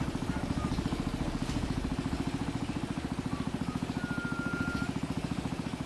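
Small boat engine running steadily with a fast, even chugging beat.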